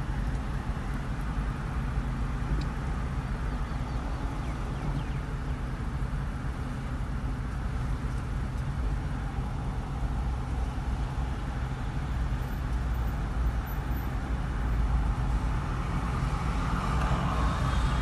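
Steady low rumble inside a Toyota car's cabin while it waits at a traffic light: the engine idling, with road traffic outside. The traffic noise swells a little near the end.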